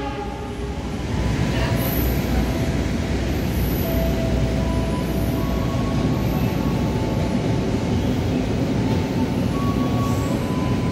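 Long-distance passenger train rolling through the station, a steady rumble of wheels on rail with a faint intermittent wheel squeal.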